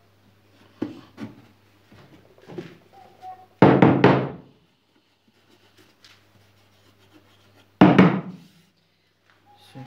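Wooden mallet striking a plywood frame, knocking freshly glued joints home: a few light knocks, then two heavy blows about four seconds apart, one near the middle and one near the end.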